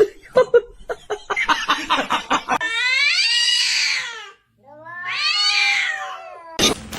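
Domestic cat yowling: a quick run of short sounds, then two long drawn-out meows, each rising and then falling in pitch.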